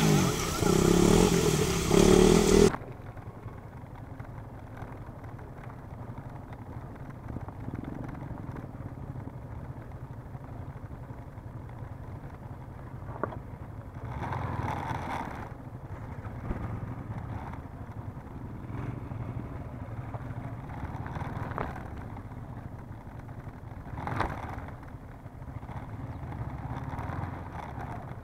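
Motorcycle engines running, heard muffled and steady, with brief louder swells around the middle and again a few seconds later. The first few seconds are covered by a loud rushing noise that cuts off suddenly.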